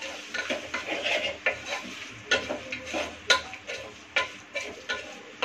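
Wooden spatula stirring vegetables and masala frying in oil in a pressure cooker, scraping and knocking against the pot in irregular strokes, a few a second, over a faint sizzle.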